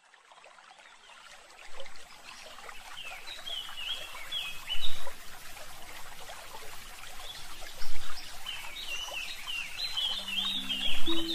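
Nature ambience fading in: running water trickling, with small birds chirping in two runs of calls and a few sharp, louder splashes. Music comes in near the end.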